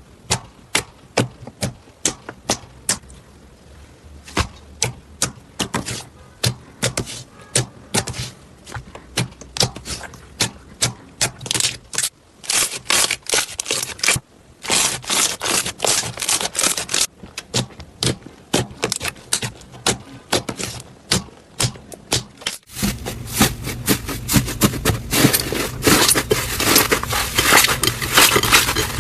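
Slime being squeezed and worked by hand, giving a run of sharp clicks and crackles, several a second. Near the end the sound switches abruptly to a louder, denser crackling.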